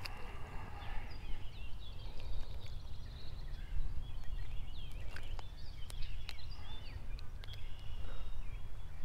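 Small birds chirping and twittering over a steady low rumble, with a few sharp clicks from handling as a small crappie is unhooked.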